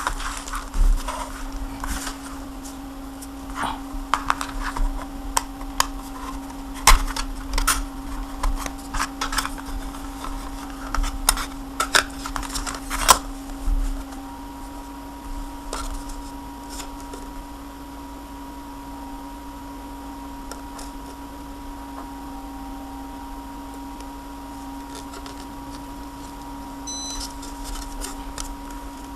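Irregular clicks and knocks of an SSD rack and its parts being handled, over a steady low hum. The handling stops about halfway through, leaving the hum and a faint steady high tone.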